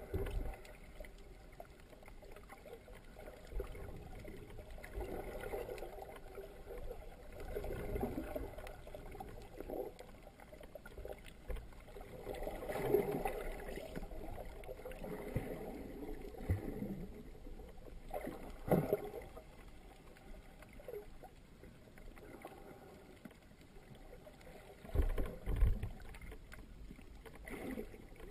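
Muffled underwater sound heard through a sealed GoPro dive housing: swirling water noise with a few dull knocks, the loudest a pair of thumps near the end.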